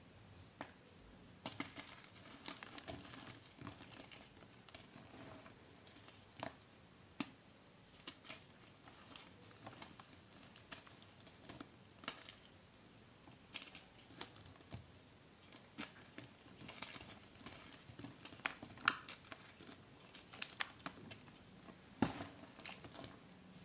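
Gym chalk crumbling and crunching between fingers over loose chalk powder: irregular crisp snaps and gritty crunches as chunks break apart, a few louder near the end.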